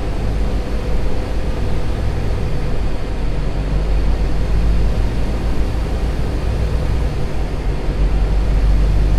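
Diesel engine of a Volvo VNL 860 semi truck running with a steady low drone, heard from inside the cab.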